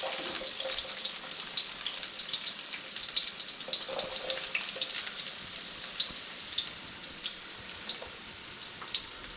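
Onion frying for a stew chicken base: a steady sizzle with many small crackles and pops.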